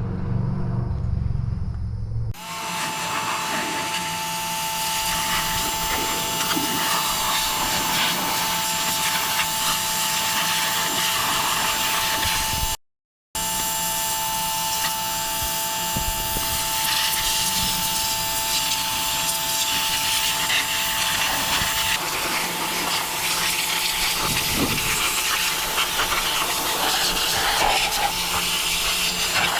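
Pressure washer spraying water onto the tractor's metal: a steady hissing jet over a constant high whine from the washer, starting after a low hum about two seconds in and breaking off for a moment about 13 seconds in.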